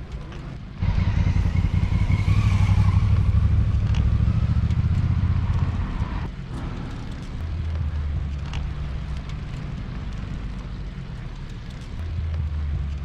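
Wind buffeting the microphone of a camera on a moving road bike, loudest in the first half. A motor vehicle's engine passes during that louder stretch.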